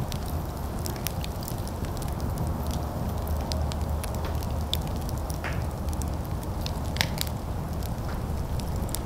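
Outdoor wood fire crackling, with irregular small pops and a sharper pop about seven seconds in, over a steady low rumble.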